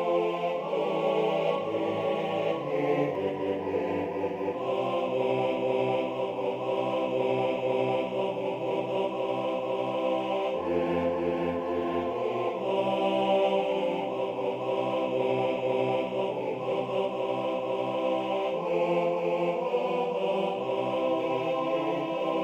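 Notation-software playback of a four-part barbershop arrangement for two tenors, baritone and bass, sounded by synthesized voices: held close-harmony chords that shift every second or two.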